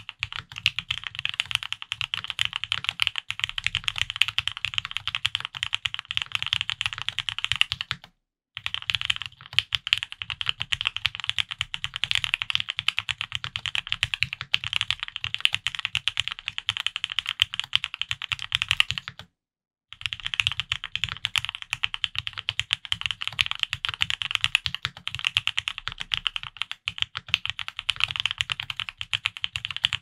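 Steady fast typing on a Mode65 custom mechanical keyboard with lubed Gateron Ink Black linear switches, a POM plate and GMK keycaps: a dense stream of key clacks. It stops dead twice for under a second, about a quarter of the way in and again past the middle.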